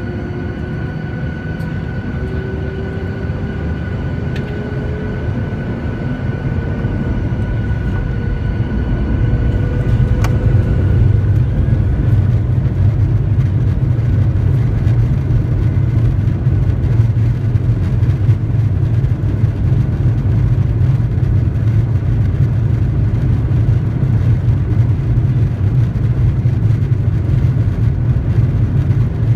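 Boeing 737-900ER's CFM56-7B turbofan engines spooling up for takeoff: a rising whine over the first ten seconds, then a loud, steady low rumble at takeoff thrust.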